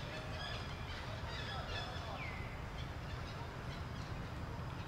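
Short, high chirping animal calls, clustered in the first half, over a steady low rumble.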